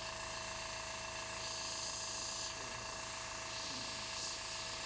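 Airbrush blowing a steady hiss of compressed air across wet acrylic paint to push the paint cells around, swelling a little about two seconds in and again near the end. A low steady hum runs beneath.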